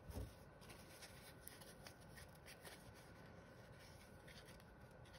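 Near silence: faint rubbing and small ticks of a cloth patch being worked around a small set screw to wipe it clean, with a soft low bump just after the start.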